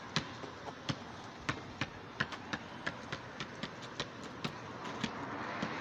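A basketball being dribbled on a paved driveway, with sneaker footsteps, during one-on-one play: a string of sharp, uneven thumps, several a second.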